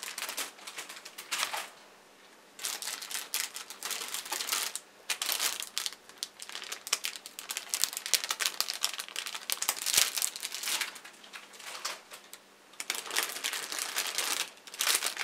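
Clear plastic bags holding model-kit runners crinkling as they are handled and lifted out of the box. It comes in irregular bursts, with short pauses about two seconds in and again about twelve seconds in.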